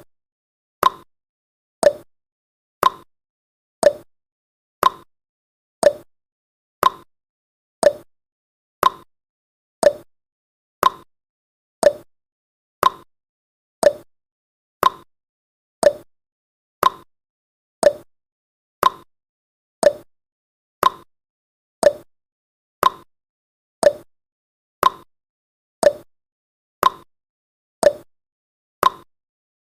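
Countdown timer sound effect: a short, sharp tick exactly once a second, evenly spaced, with silence between the ticks.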